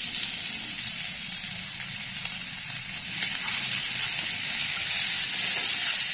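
Chopped onions sizzling in hot oil in a kadhai, a steady hiss that grows a little louder about three seconds in as a spatula stirs them.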